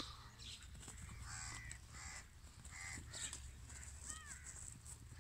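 Crows cawing repeatedly, short calls coming several times a second, over a steady low rumble.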